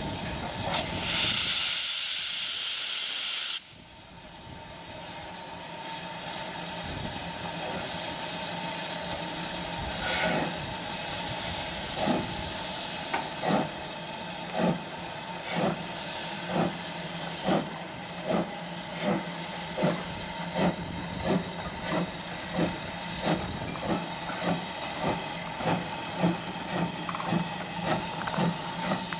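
LMS Ivatt Class 2MT 2-6-0 steam locomotive No. 46443: a loud hiss of steam that cuts off suddenly about three and a half seconds in. From about ten seconds in, its exhaust chuffs start and come steadily quicker as it pulls away.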